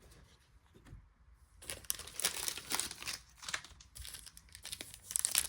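Foil trading-card pack wrapper crinkling as it is handled and torn open. The crackling starts about a second and a half in and grows louder near the end.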